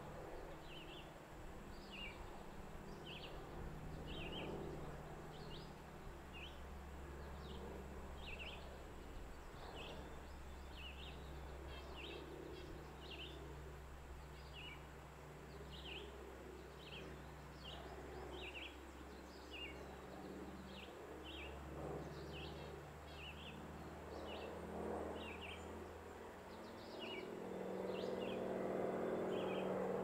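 Small songbirds chirping: short, high chirps repeated a little more than once a second, over a steady low hum. A low rumble swells near the end.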